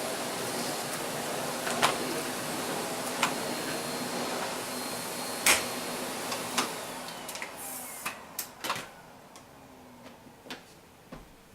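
Vacuum cleaner running, with scattered clicks and knocks. About seven seconds in it is switched off, and its motor whine falls away as it spins down.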